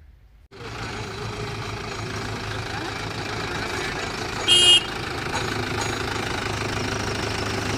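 Diesel engine of heavy machinery running steadily, coming in suddenly about half a second in. A short high-pitched tone cuts in over it briefly about four and a half seconds in.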